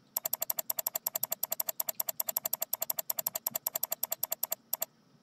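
Computer mouse button clicked rapidly and evenly, about ten sharp clicks a second; the clicking stops abruptly shortly before the end.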